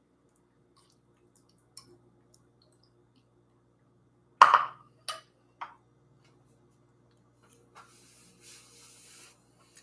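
Tableware knocking and clinking at the counter: one sharp knock about four and a half seconds in, then two lighter clinks soon after, over a faint steady hum.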